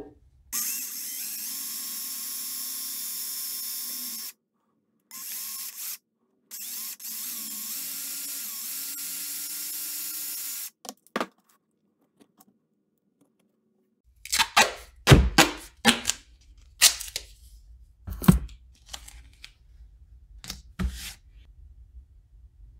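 Power drill running steadily in three spurts, spinning a wire held in its chuck to twist it. After a few seconds without sound, a run of sharp clicks and knocks of things handled and set down on the workbench, louder than the drill.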